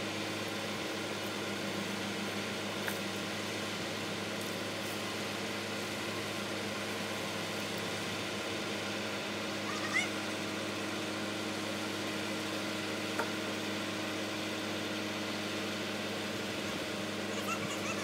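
Truck-mounted crane's engine running at a steady speed, an even mechanical hum. A few faint short chirps sound over it, the clearest about ten seconds in.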